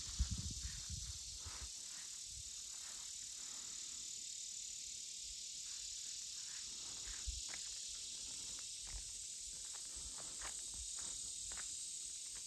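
Steady high-pitched chorus of insects, with a few soft low thumps scattered through it.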